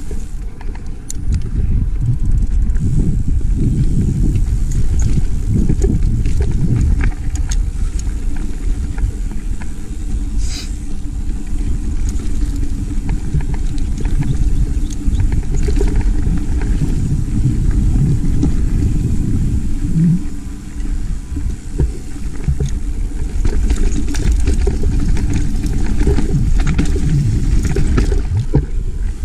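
Mountain bike rolling along a dirt singletrack: a steady low rumble of wind buffeting the microphone and tyres on the trail, with scattered clicks and rattles from the bike over bumps.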